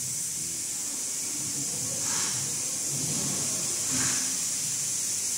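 Steady high hiss, with faint distant voices underneath.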